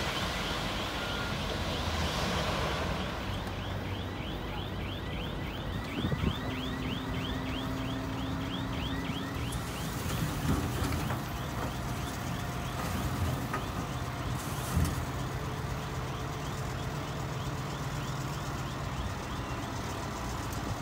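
Heavy dump truck's diesel engine running as the truck tips and spreads its load of dirt and rock, with a rushing pour of spilling dirt in the first few seconds. Over the first half, a fast warning alarm chirps about five times a second and fades out partway through.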